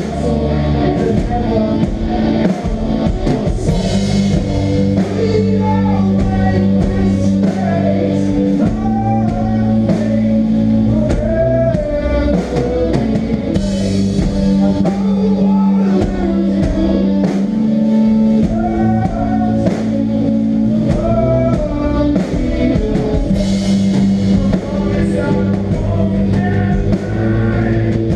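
A melodic hardcore band playing live: loud, sustained guitar chords and melodic guitar lines over bass and a drum kit, with no break in the music.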